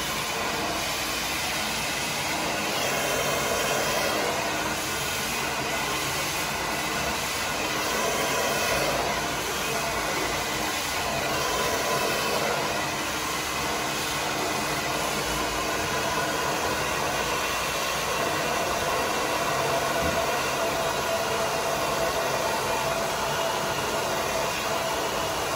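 Handheld hair dryer running steadily on high, blowing onto a section of hair wound on a round brush: an even rush of air with a faint motor whine, swelling and easing slightly every few seconds as the dryer is moved along the hair.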